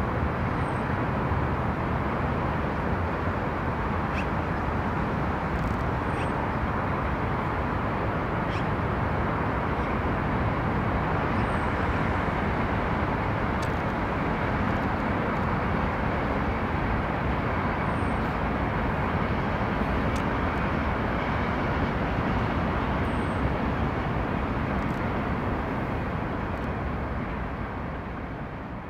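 Steady background noise of road traffic, easing off near the end.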